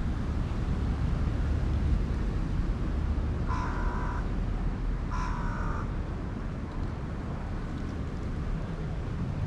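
A crow cawing twice, about a second and a half apart, each caw under a second long, over a steady low rumble.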